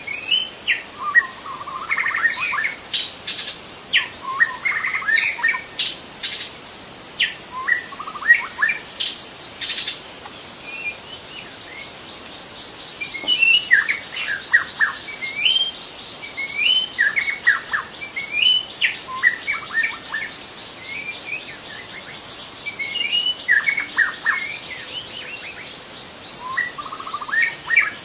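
White-rumped shama singing: a run of varied short phrases of whistled notes, many rising, mixed with sharp clicking notes, separated by brief pauses. A steady high insect drone runs underneath.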